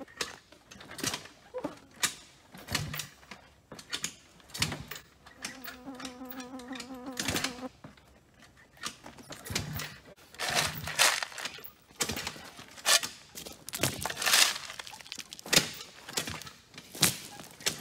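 Repeated kick-starting of an E-Ton two-stroke ATV: the kick-start lever is stamped down again and again, a sharp clunk roughly once a second, and the engine does not keep running. A short steady hum is heard for about two seconds midway.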